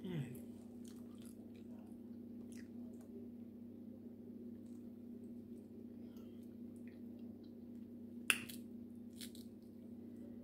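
Seafood shells being picked apart by hand while eating: scattered small clicks and crackles, with one sharp crack of shell about eight seconds in, over a steady low hum.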